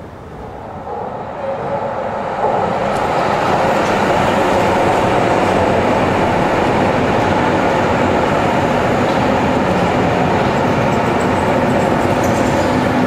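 Berlin U1 small-profile U-Bahn train running past a station platform without stopping: steady wheel-on-rail running noise. It grows louder over the first couple of seconds, then holds steady.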